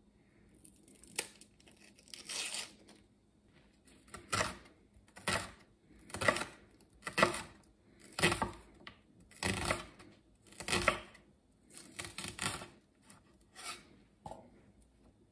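First a few quieter rustles as the onion's papery skin is peeled off, then a chef's knife chopping the onion on a wooden cutting board, about one cut a second.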